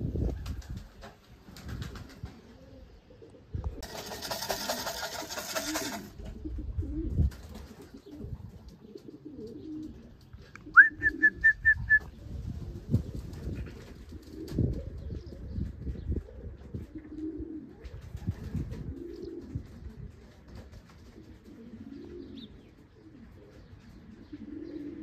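Racing pigeons cooing, low coos repeating on and off. A hiss lasting about two seconds comes about four seconds in, and about eleven seconds in there is a quick run of five high notes, the loudest sound.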